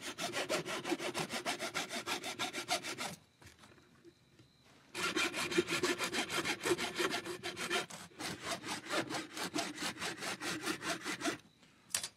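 A hand saw cutting through a human skull in quick, even back-and-forth strokes, about five a second. It goes in two runs, with a pause of nearly two seconds between them.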